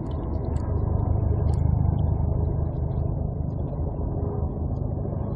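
Boat engine running with a steady low drone, heard from on board, with a few faint clicks above it.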